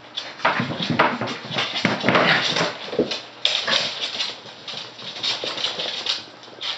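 West Highland White Terrier puppies playing, their claws clicking and scrabbling irregularly on a wooden floor, with an occasional puppy whimper.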